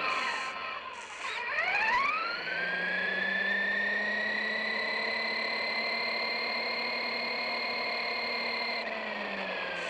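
RC truck's electric motor and drivetrain whining as the truck slows. It then spins back up in a steeply rising whine and holds a steady high-pitched whine at speed, easing off again near the end.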